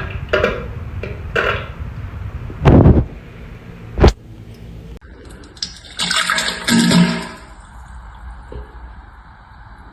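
Diarrhea sound effects: a run of short wet spluttering bursts, the loudest a sharp splat about four seconds in. About six seconds in comes a longer rushing burst of water, a toilet flush, which settles into a steady hiss.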